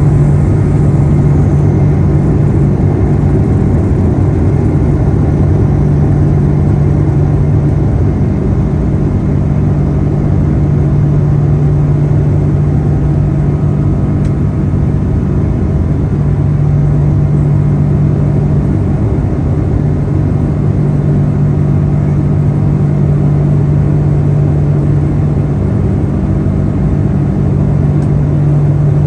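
Boeing 777-200ER's Rolls-Royce Trent 892 turbofans at takeoff thrust, heard inside the cabin over the wing: a loud, steady engine drone with a strong low hum as the airliner lifts off and climbs out.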